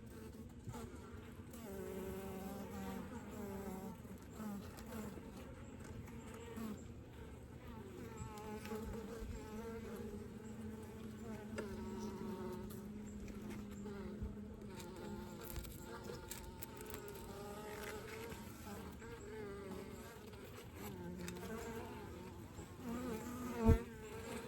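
Honeybees buzzing around an opened hive during a frame inspection: a steady, wavering hum of many wings. One short knock near the end.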